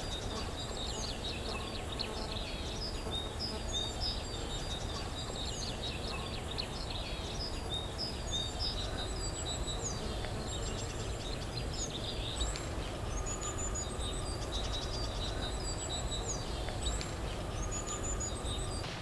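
Spring birdsong: several small birds chirping and trilling in short, high, repeated calls throughout, over a low steady background rumble.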